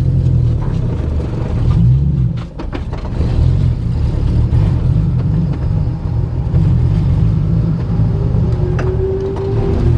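Vehicle driving on the road: a steady, heavy low rumble of engine and road noise.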